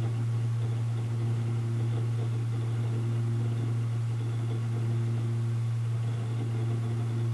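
Drobo 5D3 hard-drive enclosure giving off a loud, steady low hum with fainter overtones. This is vibration from its spinning drives, which the owner blames on the enclosure not sitting flat on all its feet.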